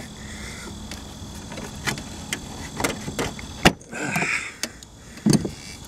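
Pliers clicking and scraping against a spark plug wire boot and the engine parts around it as the boot is pried up off the plug. A few scattered clicks, with one sharper click a little past halfway.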